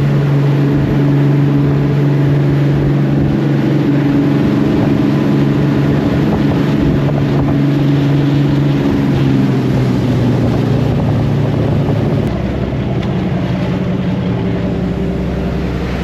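Boat engine running steadily with a low, even drone; about twelve seconds in its note changes and it gets a little quieter.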